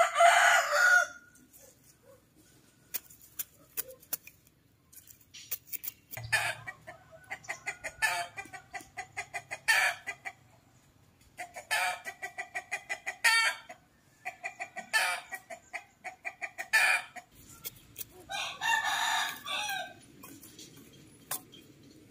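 Chickens clucking in repeated runs of fast clucks, with a rooster crowing, including a longer call near the end.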